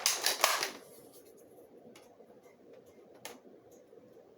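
Plastic clicks and rattles of a Nerf blaster being handled as a single foam dart is loaded into it: a quick flurry of clicks and rustling at the start, then one sharp click about three seconds in.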